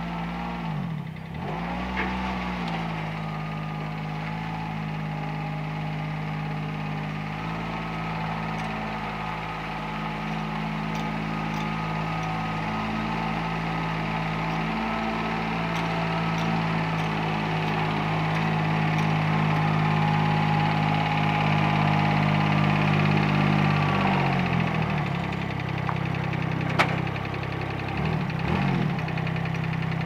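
Utility vehicle engine running steadily at low speed while towing a trailer-mounted sawmill, briefly dipping in pitch about a second in, growing louder as it comes closer, then wavering in pitch near the end. A single sharp click sounds late on.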